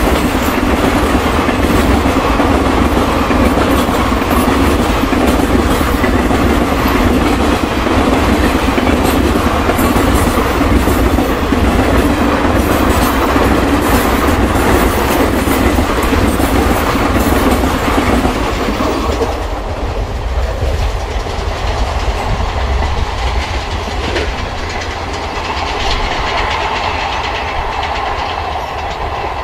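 A train running past at speed, its wheels clattering rapidly over the rails. About two-thirds of the way in, the hiss and clatter drop away sharply and a quieter rumble remains.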